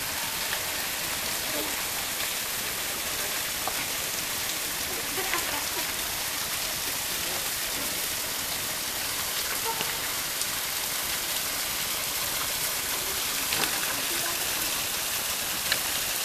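Small waterfall, a thin stream of water falling onto rocks, making a steady splashing hiss with scattered drips.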